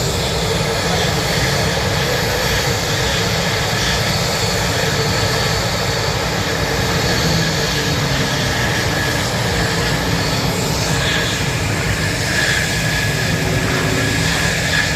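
Warbird aircraft engine running steadily and loudly as the plane taxis.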